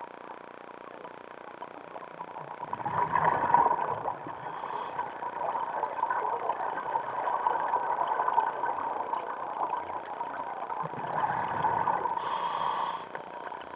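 Scuba regulator exhaust bubbles heard underwater, a rushing, bubbling noise that swells about three seconds in and again near the end.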